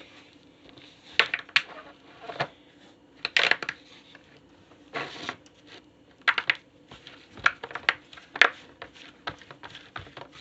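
Irregular clicks, pops and crackles of a fidget toy being stepped on and squashed underfoot, in clusters of several quick snaps.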